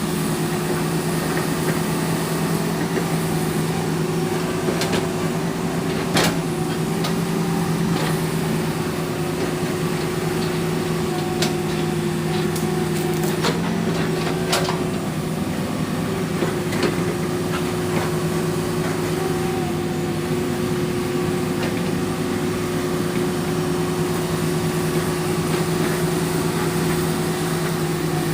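Hydraulic excavator's diesel engine running at a steady pitch while the machine works logs, with scattered sharp knocks and clanks, the loudest about six seconds in.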